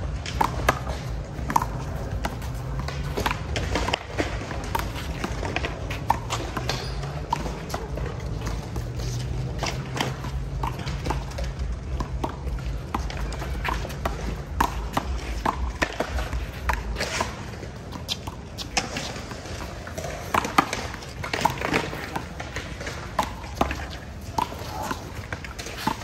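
A one-wall handball rally: repeated sharp smacks at an uneven pace as the small rubber ball is struck by players' hands and rebounds off the concrete wall.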